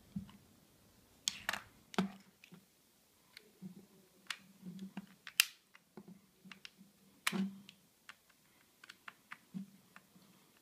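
Small screwdriver clicking and scraping against the metal back panel of an Elsys Satmax HD satellite receiver as it works at the warranty seal, with irregular light knocks from the box being handled on the table. A few sharper clicks stand out about a second and a half, two, five and a half and seven and a half seconds in.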